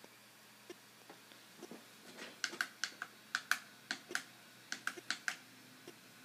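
Quick, uneven run of key taps on a computer keyboard, starting about two seconds in and lasting about three seconds, with a few faint ticks around it.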